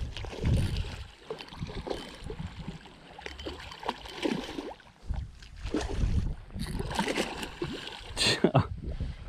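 Water splashing and sloshing in irregular bursts, mixed with low rumbling knocks, while a hooked tarpon is being fought on rod and line. A sharper, louder splash comes near the end.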